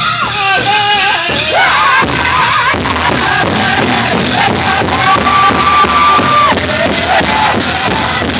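Powwow drum group singing a prairie chicken dance song: voices in high melodic lines over a steady pounding drumbeat, with one long held note partway through.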